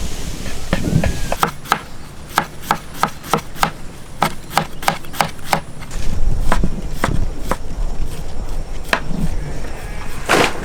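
Knife chopping banana flower on a board in quick, regular strokes, about three a second, pausing briefly around the middle and then going on more unevenly.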